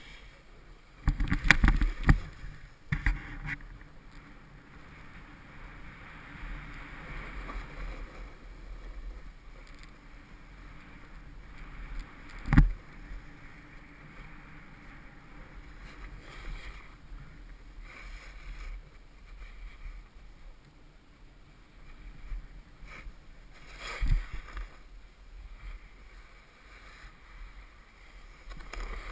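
Snowboard sliding and carving over packed snow: a steady scraping hiss. A few sharp knocks cut through it: a cluster near the start, one a little before halfway, and one past three-quarters of the way.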